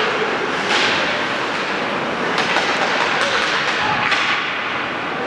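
Ice hockey being played in a rink: several sharp scrapes and cracks of skate blades cutting the ice and sticks hitting the puck, over a steady rink din.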